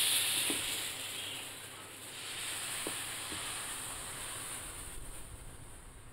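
Dosa batter sizzling on a hot tawa (griddle) as it is poured and spread with a ladle. The hiss is loudest at first, fades, swells again about two seconds in, then tapers off. A few light ladle clicks are heard.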